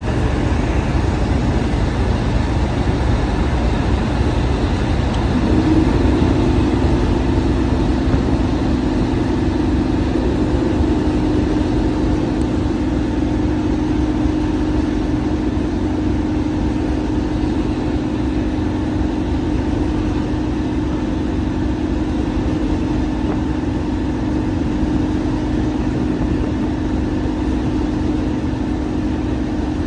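Train running with a steady low rumble. About five seconds in, a steady two-note hum starts and holds.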